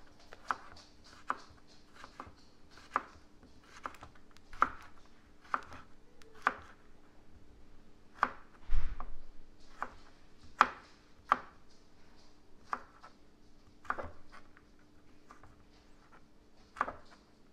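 Kitchen knife chopping sweet potato into small pieces on a cutting board: sharp strikes at an uneven pace of about one a second, with one heavier thud about nine seconds in, over a faint steady hum.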